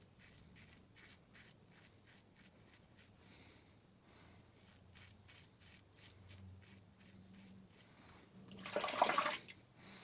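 Razor scraping through lather and stubble in short strokes, a few a second, during a with-the-grain shaving pass. Near the end, about a second of running water splashes.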